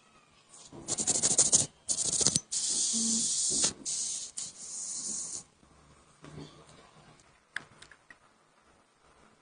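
Rapid scratchy brushing for a couple of seconds, then two long hissing bursts of spray, each about a second and a half, during the cleaning of a phone's parts. A single sharp click comes near the end.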